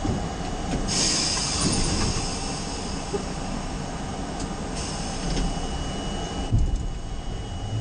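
R32 subway train running through the tunnel: a steady rumble of wheels on rail with a brighter hissing rush that comes in about a second in and drops away near the end.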